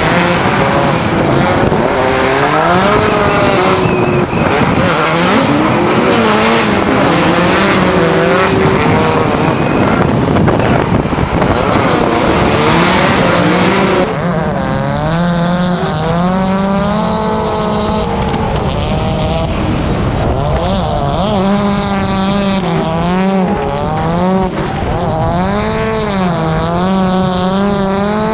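Drift car engines revving hard and sweeping up and down in pitch as the throttle is worked through slides, with tires squealing. The sound changes abruptly about halfway through.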